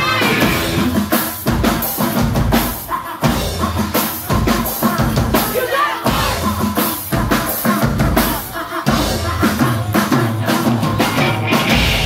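A loud live rock band playing, with the drum kit out in front: hard bass drum and snare hits over electric guitar.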